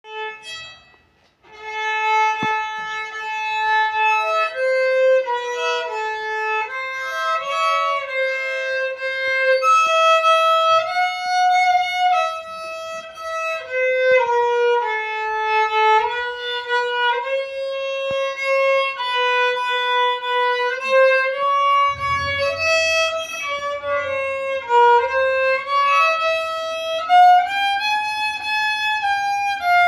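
Newly finished, freshly strung handmade rabeca, a Brazilian folk fiddle, bowed in a single-line melody of held notes that slide from pitch to pitch. It starts about a second and a half in.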